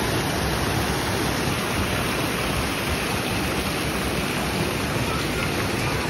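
Water from a small rock cascade pouring steadily and splashing into a pool.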